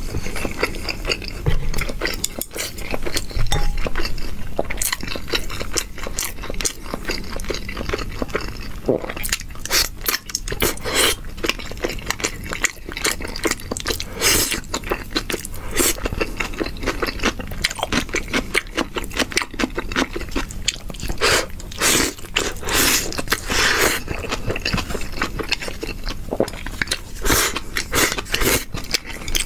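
A person eating close to the microphone, chewing and biting into saucy food with many short wet smacks and crunches.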